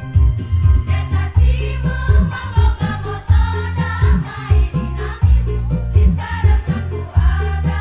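Women's choir singing together over an accompaniment with a strong steady bass and a regular beat; the voices come in about a second in.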